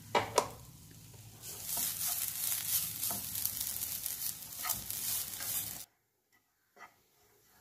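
Grated coconut sizzling in a nonstick frying pan as it dries out, stirred and scraped with a spatula. Two light taps of the spatula come first, then a steady hissing sizzle with scrapes, which cuts off suddenly about six seconds in.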